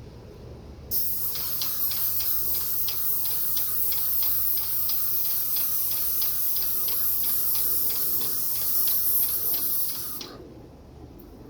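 Graco 395 airless paint sprayer's gun triggered on: a loud, steady hiss of paint spraying that starts about a second in and stops near the end, with a regular ticking of about three or four clicks a second running through it.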